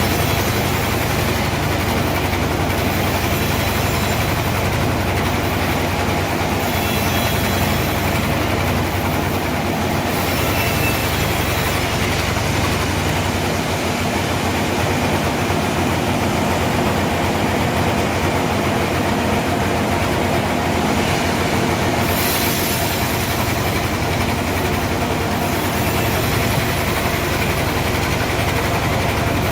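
Band sawmill running steadily, a continuous machine drone with a low hum.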